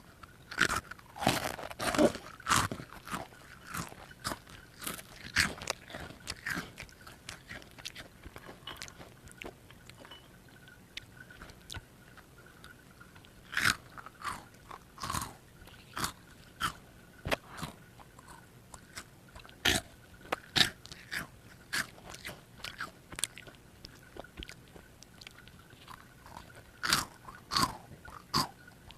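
A child biting and crunching a crunchy Pokémon chocolate snack, then chewing it. The crunches come thick and fast for the first several seconds, then in spaced-out clusters of bites.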